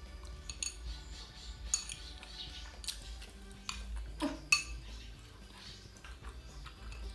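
Eating utensils clinking and scraping against dishware in a series of irregular sharp clicks, the loudest about four and a half seconds in.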